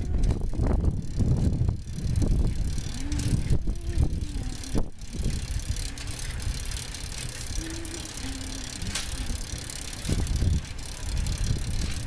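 Ride on a bicycle heard from a camera mounted on the bike: a steady low rumble, with frequent clicks and knocks as the bike rattles over the city street.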